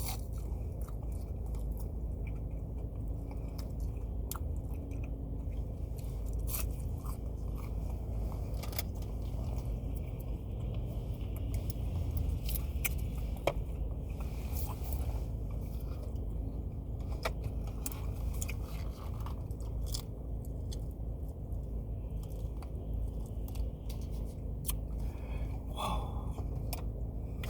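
Close-up chewing and crunching of fried food, with many short irregular crunches and mouth clicks over a steady low hum.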